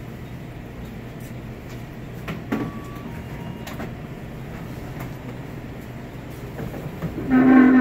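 Steady hum of a convenience store's ventilation and refrigeration, with a few light knocks and clatters, a short electronic beep about three seconds in, and a loud voice near the end.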